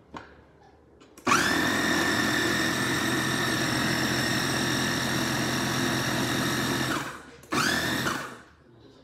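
KitchenAid food processor motor chopping fruit and vegetables, starting about a second in and running steadily for about six seconds while the button is held, then spinning down. A short pulse of under a second follows, spinning up and straight back down.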